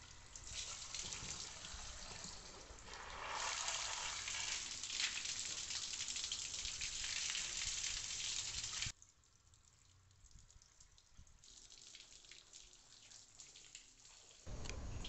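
Water from a garden hose gushing through a motorcycle engine's cooling passages and splashing off the engine and onto a tiled floor, flushing out the radiator system until the water runs clean. The splashing cuts off suddenly about nine seconds in, leaving a faint hiss, and a louder low noise starts near the end.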